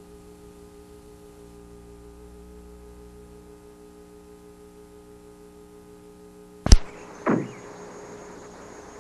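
VHS tape playback noise at a break between recordings: a low, steady buzzing hum, then a sharp click about two-thirds of the way in where the recording switches, a brief downward-gliding tone, and steady tape hiss with a thin high whine.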